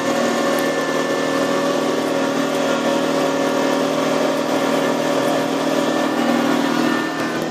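Electric garden tractor's drive motor and drivetrain humming steadily as it drives over grass.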